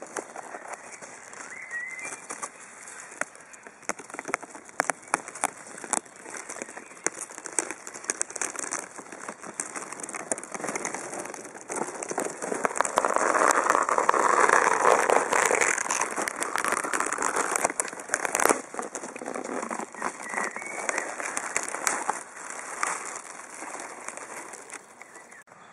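Dense crackling and clicking noise over a hiss, with a louder rushing noise swelling up about halfway through and fading a few seconds later.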